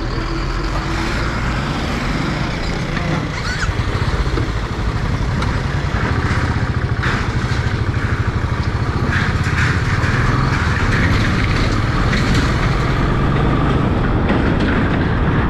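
Motorcycle engine running steadily on the move, with continuous road noise.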